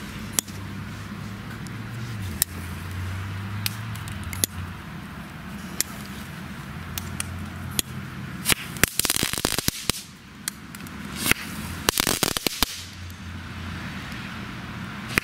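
Small category 1 crackling balls popping on wet asphalt: scattered single sharp cracks, then dense bursts of crackling about eight to ten seconds in and again around eleven to twelve seconds in, over a steady hiss of heavy rain.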